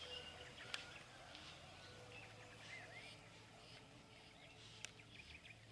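Faint birdsong: scattered chirps and short whistles from several birds, with two sharp clicks, one about a second in and one near the end.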